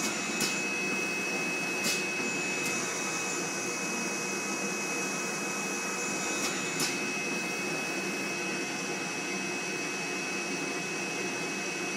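Jinbao flatbed screen printing machine running: a steady mechanical rushing noise with a constant high whine, and a handful of sharp clicks in the first seven seconds.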